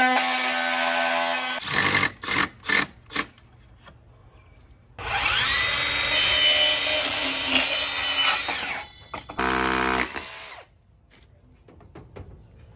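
Power tool cutting to enlarge a wall opening, run in several bursts: a steady whine that stops early, a few short spurts, then a longer loud run that spins up about five seconds in and a last short burst near the end.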